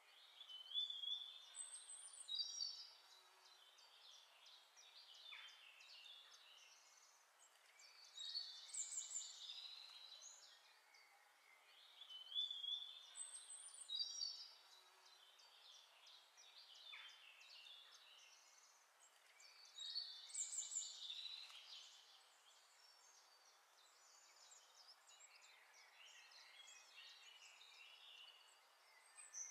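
Faint birdsong: a small bird singing short phrases of high chirps, whistles and trills, repeated every several seconds, with a faint hiss between the phrases.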